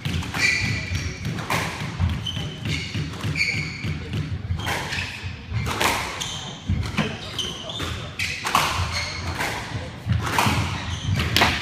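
A squash rally: sharp knocks of the ball off rackets and walls about every second or so, with sneakers squeaking on the hardwood court floor.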